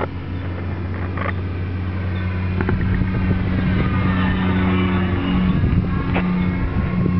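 The electric motor and propeller of a Carl Goldberg Freedom E-20 radio-controlled model plane whine as it passes overhead. In the middle the pitch dips and then rises again over a couple of seconds. A steady low hum runs beneath.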